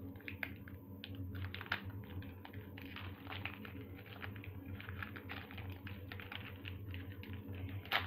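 Pokémon trading card booster pack being opened and its cards handled: a quick, irregular run of small crackles and rustles over a steady low hum.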